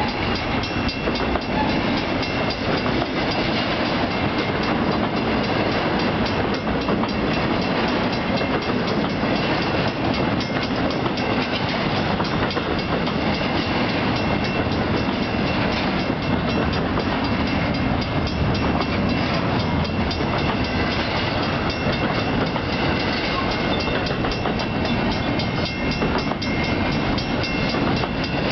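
Freight cars rolling past at speed: a continuous rumble and rattle of steel wheels with rapid clicking over the rail joints, and a faint steady high-pitched tone underneath.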